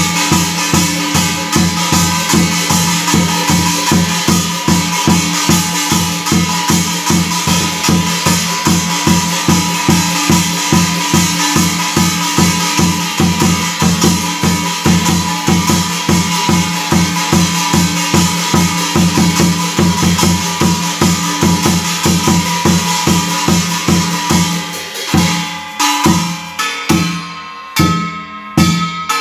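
Korean shaman ritual drumming: a barrel drum (buk) beaten with a stick in a fast, even beat of about four strokes a second, with metallic ringing from the brass gongs mounted around it. Near the end the beat thins out and the ringing dies down.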